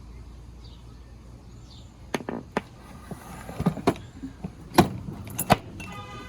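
Metal machinist's tools being handled in the drawers of a wooden tool chest: a scatter of sharp clicks and knocks starting about two seconds in. A short squeaky tone follows near the end.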